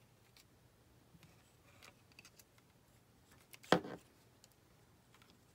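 Quiet handling of cardstock and a hot glue gun on a craft table: faint rustles and small clicks, with one sharper knock about three and a half seconds in.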